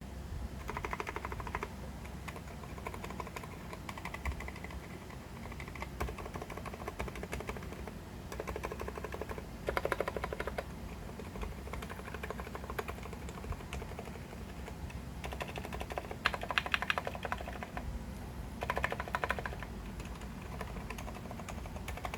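Typing on a custom 60% keyboard with Cherry MX Silent Red switches on the letter keys and 60g Aliaz silent tactile switches on the modifiers, in a foam-filled aluminium case with XDA keycaps. The keystrokes run steadily, with several quicker, louder flurries of typing.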